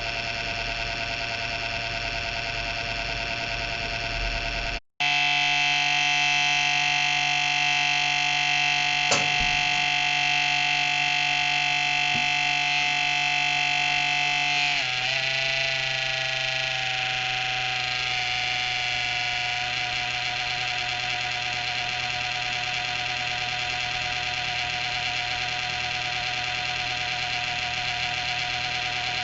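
A PC making an abnormal, steady whining drone made of several high and mid tones over a low hum, which the owner takes as a sign the machine may be nearing its end. It breaks off for an instant about five seconds in and comes back louder, then the pitch wavers and settles slightly lower about halfway through.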